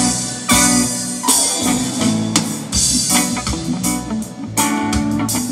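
Live reggae band playing an instrumental passage: drum kit hits over bass guitar, keyboard and guitar chords, with no singing.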